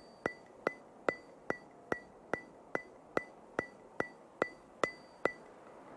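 A steady run of sharp ticks, about two and a half a second, each with a short high ring, like a metronome or clock-tick intro effect.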